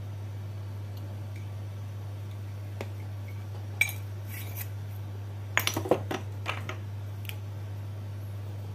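A few light clicks and clinks of a metal spoon and spice shakers being handled at a plastic mixing bowl: one sharp click about four seconds in, then a quick cluster of knocks around six seconds in. A steady low hum runs underneath.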